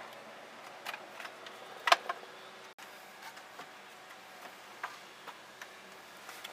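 Sharp plastic clicks and snaps from a pickup's dash center-stack trim bezel being worked free and its wiring connectors unclipped. The loudest snap comes about two seconds in, followed by a series of lighter clicks.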